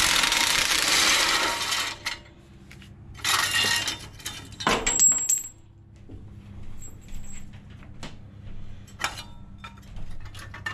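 Cordless impact driver running in two bursts, about two seconds and then about one second, backing out a muffler bolt on a lawn tractor engine. Then light metallic clinks of the loosened bolt and small parts being handled.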